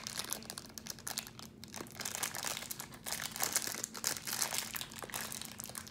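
Crinkly plastic wrapper of a small toy surprise packet being picked and pulled open by hand, giving a run of irregular crackles.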